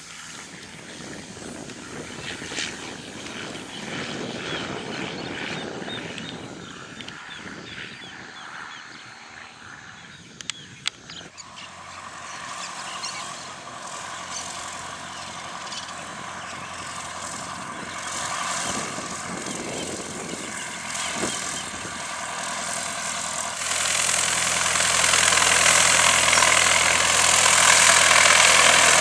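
Cessna 152's four-cylinder piston engine and propeller running at low power as the plane taxis, getting clearly louder as it rolls up close near the end. The first third is a fainter, hissy stretch, with a couple of sharp clicks about ten seconds in.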